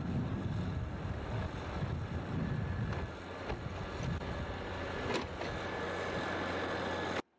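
Backhoe loader's engine running under load while it digs with the rear bucket, with a few sharp knocks a little past the middle. The sound cuts off suddenly near the end.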